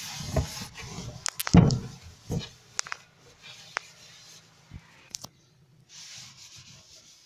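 Cloth wiping over a wooden cabinet shelf, with scattered knocks and clicks from handling. One louder thump comes about one and a half seconds in.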